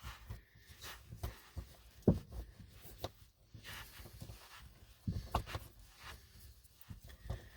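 Scattered small clicks and taps of a screwdriver turning Phillips screws out of a plastic dashboard panel, with one sharper click about two seconds in and a few more a little after five seconds.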